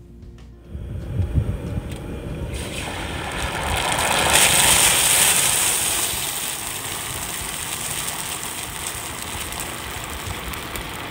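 Hot oil in a propane turkey fryer boiling over and flaring as a turkey goes in: a loud sizzling hiss of oil and steam that swells about two and a half seconds in, is loudest a couple of seconds later, then carries on steadily. This is the violent reaction that a turkey that is not fully thawed sets off in hot oil. Wind rumbles on the microphone underneath.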